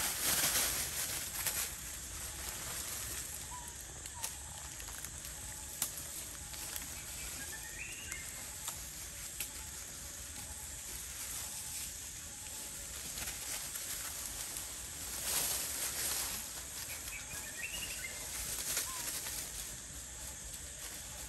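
Long-tailed macaques scampering and tussling on dry leaf litter, the leaves rustling loudest right at the start and again about 15 seconds in, over a steady high hiss. Two faint short chirping calls, about 8 and 18 seconds in.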